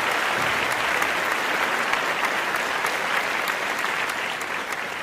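Applause from a crowd: a dense patter of clapping that slowly fades toward the end.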